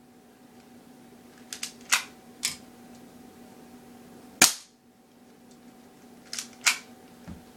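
Colt airsoft pistol firing: sharp snapping pops and clacks, the loudest about four and a half seconds in, with smaller clacks clustered around two seconds in and near the end. A faint steady hum lies underneath.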